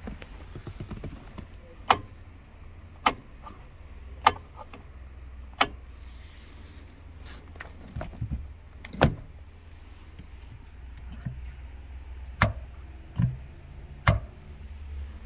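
About ten sharp clicks and knocks, one every second or two, from the interior fittings of an Alfa Romeo Arna (sun visor and rear-view mirror) being handled and tapped, over a low steady hum.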